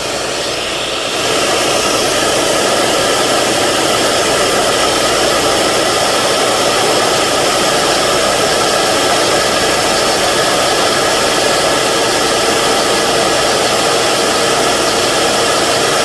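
Steady whooshing hiss of a dust-extraction vacuum running beside a small lathe spinning a graphite glassblowing tool, stepping up louder and brighter about a second in and then holding steady.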